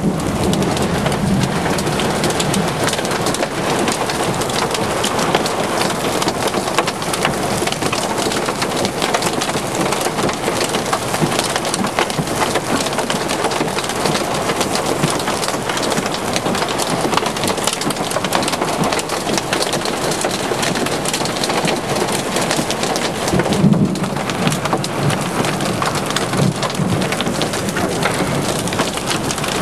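Heavy rain mixed with small hail pelting pavement and wet ground: a dense, steady hiss flecked with many sharp little ticks of hailstones striking. About three quarters of the way through there is a brief louder, deeper swell.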